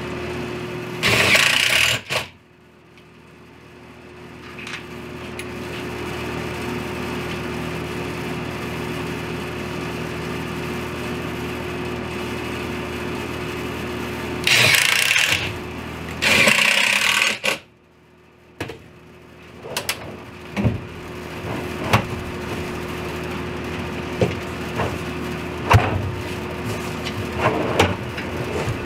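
Cordless drill/driver driving screws to fasten a drawer slide into a cabinet: three short bursts of the drill running, one about a second in and two close together around halfway. A steady hum runs underneath, and scattered knocks and clicks from handling the slide and jig follow in the second half.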